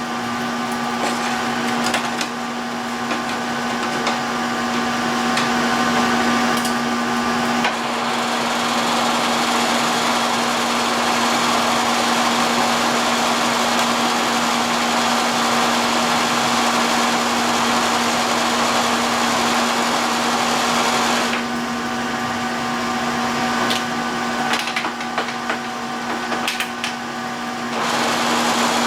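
Milling machine spindle running with a steady hum while a 4-inch shell mill takes a face (skim) cut on an aluminum block. A louder rushing cutting noise sets in about a quarter of the way through, drops away about three-quarters through with a few clicks, and comes back near the end.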